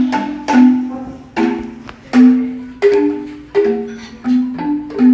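Music: a tuned mallet-percussion instrument plays a melody of struck notes, each ringing and fading, about two a second.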